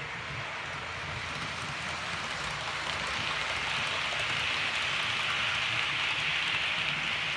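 Model HST train running on model railway track: a steady whirring rattle of wheels and motor that grows louder from about two seconds in as the train passes close, loudest around five to six seconds in, over a low hum.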